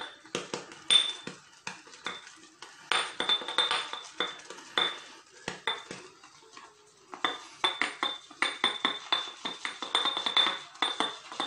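Shaving brush whipping shaving soap into lather in a shaving bowl: quick strokes with the brush clinking against the bowl, which rings with a high ping. The strokes ease off for a moment about six seconds in, then start again.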